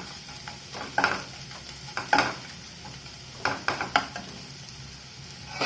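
Grated raw turmeric sizzling in hot desi ghee in a kadhai, with a metal spatula scraping and knocking against the pan about six times as the turmeric is stirred and scooped out.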